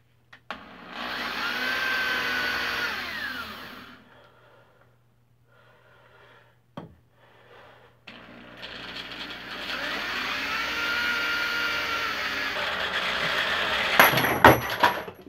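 Hand-held electric drill boring holes through thin steel languette strips, in two runs, its whine rising as the motor spins up and falling as it slows. A few sharp metallic clanks near the end.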